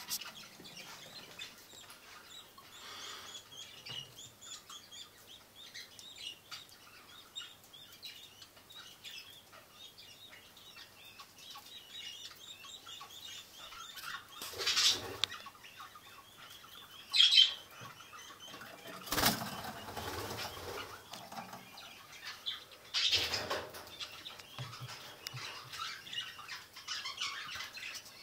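Many budgerigars chirping and chattering steadily, with four louder bursts of wing flapping in the second half.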